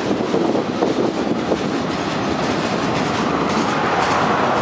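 Freight train rolling past, loaded flatcars' steel wheels running over the rails with a steady rumble and clatter that grows brighter in the second half.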